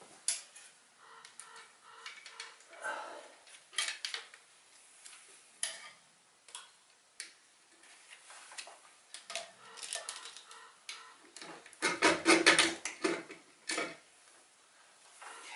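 Hands and tools working on parts in a Cummins diesel engine bay: scattered clicks, clinks and clanks of metal and plastic parts being handled and loosened, with a louder burst of clattering about three quarters of the way through.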